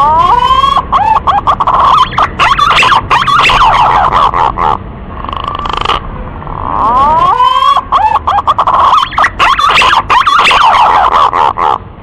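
Male pink-necked green pigeon (punai gading) singing, played as a lure call: two long phrases of loud, warbling whistles that glide up and down, with a short softer note between them about five seconds in.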